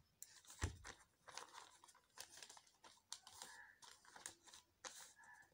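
Sheets of paper being handled and shifted over an open textbook: irregular rustling and crinkling, with one soft knock about two-thirds of a second in.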